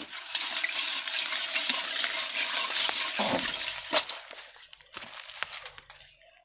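Dense rustling and crackling of leafy red-ant nests being stirred by hand in a steel bowl, with a sharp click about four seconds in. The rustling fades about five seconds in.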